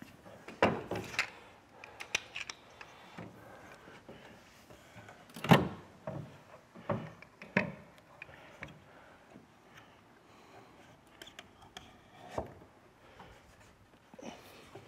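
Scattered wooden knocks and clicks as wooden cam clamps are set and a plank is worked into place against a carvel-planked boat hull, with one sharp knock about five and a half seconds in and faint rubbing between.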